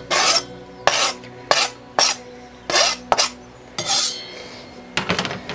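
A knife scraping chopped red onion off a plastic chopping board into a stainless steel saucepan: a quick, uneven series of sharp scrapes and knocks against the board and the pan.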